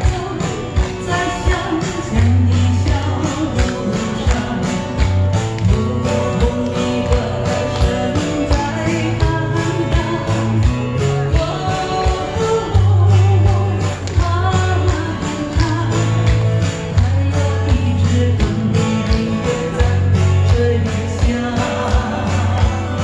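Live pop music from a singer-and-guitar duo: guitar over a steady beat with a deep bass line and tambourine jingles, with a voice singing at times.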